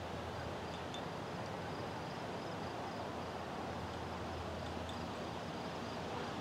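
Steady outdoor night ambience: an even hiss with faint insects chirping in a steady, high, pulsing pattern.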